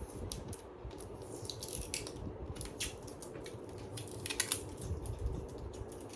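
Light handling noises of product packaging: scattered clicks and short rustles, with a brief cluster of sharper clicks about two-thirds of the way through.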